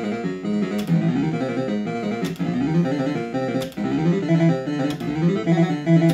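Bell-Fruit Cash Explosion fruit machine playing its electronic tune, a quick run of stepping synthesized notes, broken by four sharp clicks about a second and a half apart.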